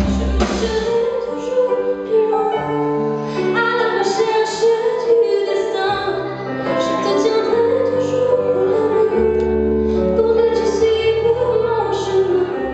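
A woman singing a pop song live with her band, her voice carried over keyboard chords and long held bass notes.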